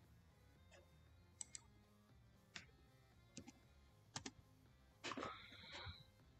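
Faint, scattered clicks of a computer keyboard and mouse, irregularly spaced, with a brief louder noise about five seconds in.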